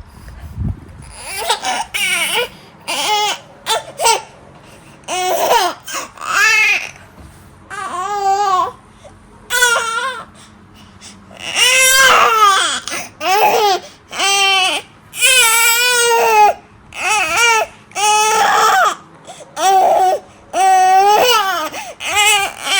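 Baby crying in a string of high-pitched wails broken by short breaths. The cries grow longer and louder about halfway through.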